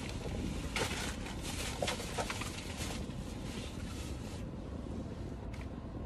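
Steady low rumble inside a parked SUV's cabin, with faint rustling and a few light clicks in the first couple of seconds.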